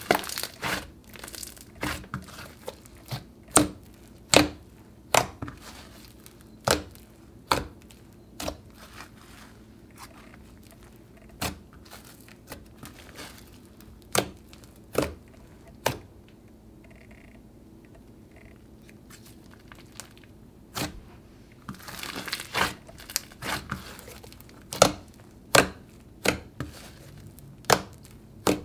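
Thick fluffy slime being squeezed, poked and stretched by hand, giving a run of sharp clicking pops with a quieter pause in the middle and a denser crackling patch a few seconds before the end.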